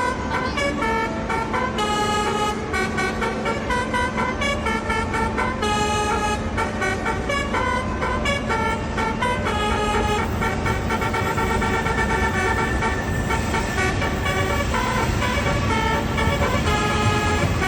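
Railjet train horn sounding a fast run of changing notes like a tune, over a steady low rumble.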